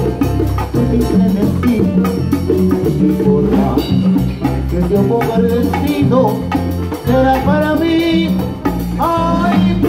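Live salsa band playing between sung verses: a steady bass line and percussion, with a higher melodic line coming in about four seconds in.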